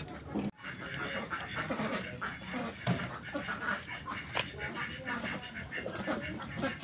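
Bare hand squelching and slapping a chunk of beef as it works a thick, wet spice marinade into the meat in a metal pot, with irregular wet squishes and one sharp click a little over four seconds in.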